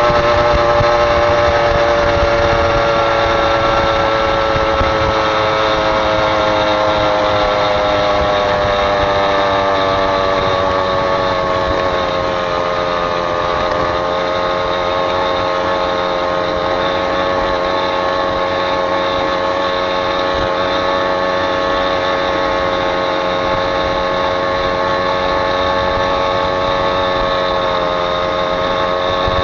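Vehicle engine running steadily while under way, with a whine that sinks slowly in pitch over the first dozen seconds, holds, then rises a little near the end.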